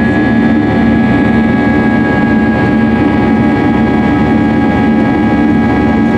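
Airbus A320's jet engines running steadily, heard from inside the cabin: a constant loud drone with a steady high whine over it.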